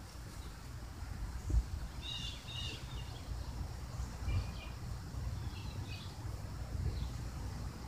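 Small birds chirping in short, high phrases, several times over a steady low rumble.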